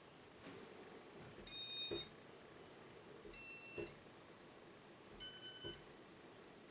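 Three electronic beeps from a Casablanca ceiling fan's control, each about half a second long and roughly two seconds apart, each ending in a small click.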